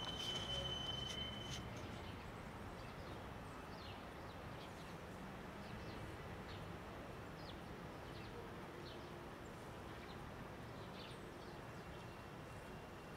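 Steady outdoor background noise with faint, scattered bird chirps, and a thin high whistle-like tone in the first second or so.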